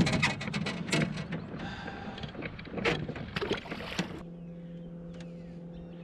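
Knocks and clatter of handling in a small fishing boat, which gives way suddenly about four seconds in to a steady low hum.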